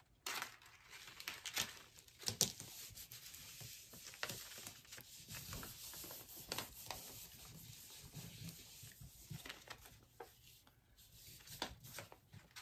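A sheet of copy paper rustling and crinkling as hands press and rub it down onto a gel printing plate laid with papyrus stems. Quiet, with scattered soft crackles.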